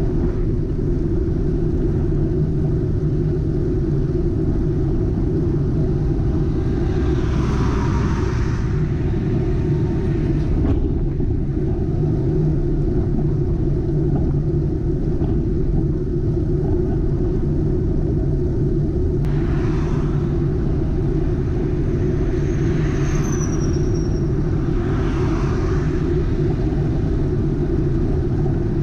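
Steady low rumble of wind and road noise on a bicycle-mounted action camera riding at about 22 km/h. Motor vehicles pass the rider about eight seconds in and three more times in the last ten seconds, each swelling and fading.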